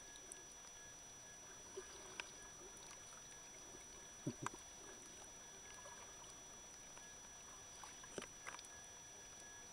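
Near silence as heard through an underwater camera: a faint steady hiss with a thin high tone, broken by a few scattered clicks and knocks. The loudest is a pair of dull knocks about four and a half seconds in, and there is a small cluster of clicks near the end.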